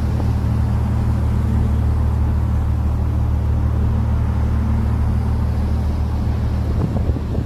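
Boat engine running steadily, heard on board as a loud, even low drone, with a brief knock about seven seconds in.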